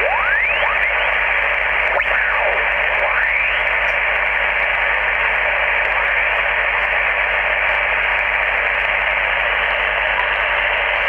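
ICOM IC-718 HF transceiver's speaker giving out steady band-noise hiss on the 20-metre band in upper sideband, with the preamplifier switched off, as the tuning knob is turned down the band. A few whistles slide in pitch in the first few seconds as signals are tuned past. The receiver is unmodified and noisy, reception the repairer calls awful.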